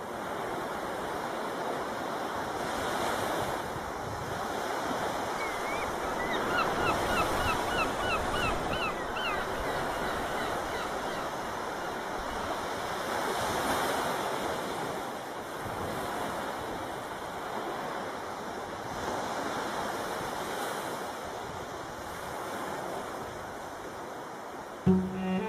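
Sea waves washing ashore, swelling and easing every few seconds. About six seconds in, a bird gives a quick series of about ten short rising calls over some three seconds. A cello comes in just before the end.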